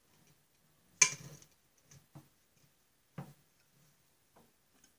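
Metal parts clinking as a bearing and its pressing tool are set in place under a drill press: one sharp clink about a second in, a couple of light taps, then a knock near three seconds.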